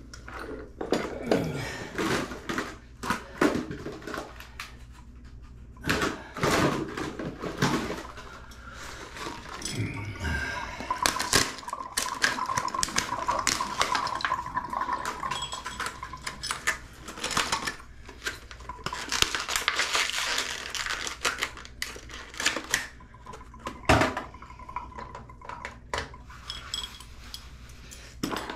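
Hand-handling of a replacement Moen Posi-Temp shower valve cartridge and its clear plastic packaging: repeated clicks, clinks and plastic rattles, with water trickling from a tub spout and a thin steady whistle coming in twice in the middle.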